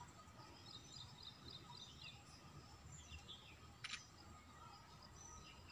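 Near silence with faint, high bird chirps now and then, and a single brief click about four seconds in.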